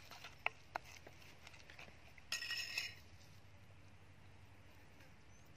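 Metal spoon clinking against a bowl while stirring batter: two sharp clinks in the first second, then a short ringing clatter about two and a half seconds in.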